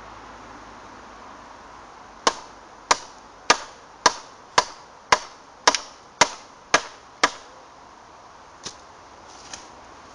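Ten sharp knocks, about two a second, then two fainter ones near the end: a froe being struck to drive it into the end of an ash pole and start the split for cleaving.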